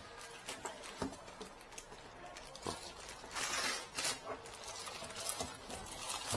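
Faint rustling and a few light knocks as a printer is packed into its cardboard box, the loudest rustles about three to four seconds in.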